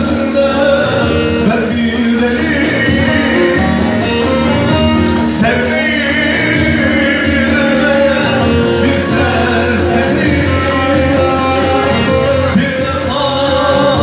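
Song music in a passage without lyrics: instruments play held melodic lines, and the music continues to the end of the song.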